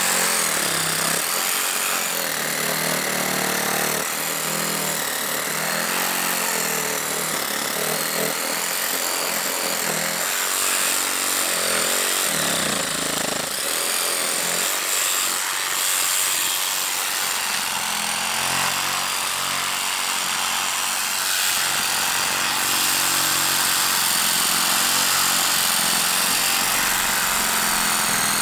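DeWalt Atomic DCS369 20V brushless compact reciprocating saw running continuously, its 12-inch Diablo pruning blade sawing back and forth through a thick log.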